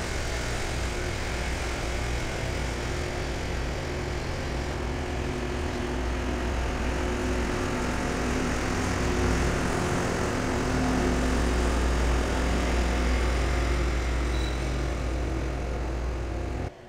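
Loram rail-grinder train rolling past, its diesel engines droning steadily over wheel and rail noise. It cuts off abruptly near the end.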